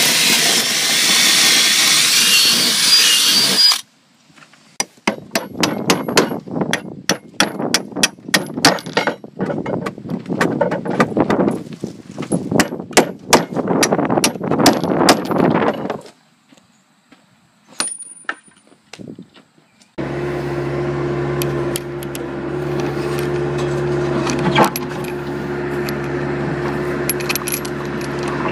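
Electric drill boring into a pine board for about four seconds, with a high whine over the grinding of the bit. Then dense, irregular clicking and rattling for about ten seconds while a nut is tightened onto a bolt under the boards. A steady hum with low fixed tones takes over near the end.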